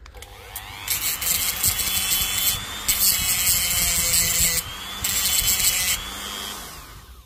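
Small handheld power tool with an abrasive head cleaning the positive terminal end of a salvaged 18650 lithium-ion cell ready for spot welding. The motor spins up with a rising whine, grinds against the metal in three bursts, and winds down near the end.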